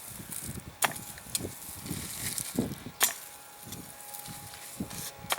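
Homemade potato-fork cultivator worked through garden soil: three sharp knocks about two seconds apart as the tines are plunged in, with the scrape and rustle of soil dragged loose between them.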